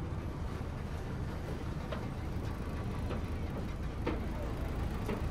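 Steady low rumble of a river tourist boat's engine, with a few faint knocks.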